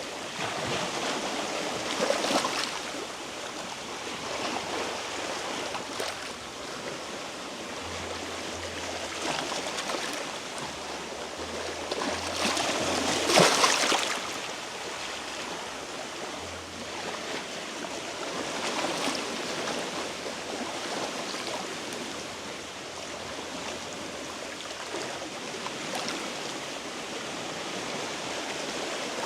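Small sea waves washing against rocks in a steady rush, swelling now and then, with the biggest surge about thirteen seconds in.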